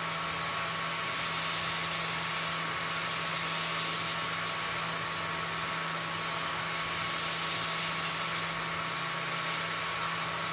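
CNC milling machine finishing a chamfer in aluminium with an end mill: a steady spindle hum with a continuous hiss over it. A higher-pitched cutting sound swells and fades about three times as the tool works along the edge.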